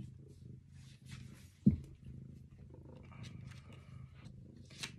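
House cat purring steadily close to the microphone, with one dull thump about a second and a half in and a light rustle of paper pages being turned.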